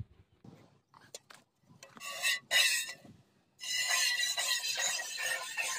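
A water buffalo being milked by hand: thin jets of milk hiss into a steel bucket in quick spurts, starting about two seconds in, with a short break before settling into a steady rhythm.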